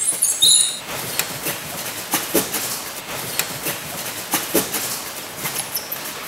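Irregular dry clicks and crackles, the stronger ones two or three a second, some with a short hollow ring. A cluster of high squeaky chirps comes in the first second.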